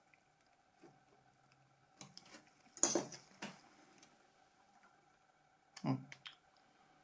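Light clicks and taps of small phone parts being handled while a new touchscreen is fitted into a Nokia C3-01 and its connector pressed home. They come in two clusters, around three seconds and six seconds in.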